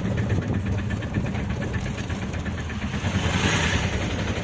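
Auto-rickshaw engine running steadily with a regular pulsing chug, heard from inside the cab while riding, with a brief swell of hiss about three seconds in.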